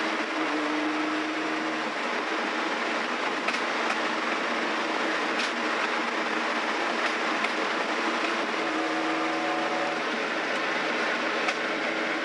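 Lamborghini LM002's 5.2-litre Countach V12 running at a steady cruise, heard from inside the cabin under a constant rush of road and wind noise.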